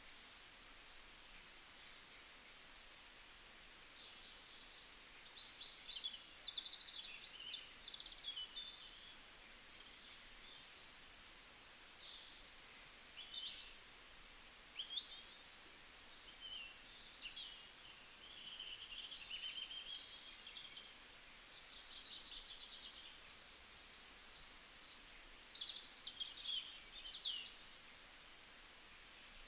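Several wild birds calling in bush: a mix of high chirps, quick whistled sweeps and short trills that come and go, over a faint steady hiss.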